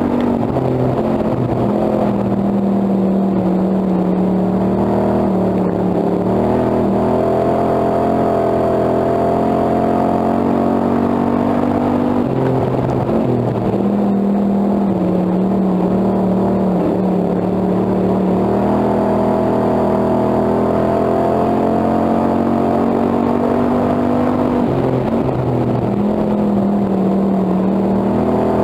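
Hobby stock race car engine, heard from inside the cockpit running hard at racing speed. Its pitch drops as the car goes through each turn and rises again down each straight, about every twelve seconds.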